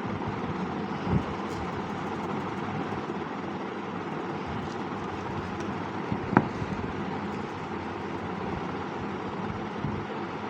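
Steady background noise, like distant traffic or a running fan, with two short knocks, one about a second in and a sharper one about six seconds in.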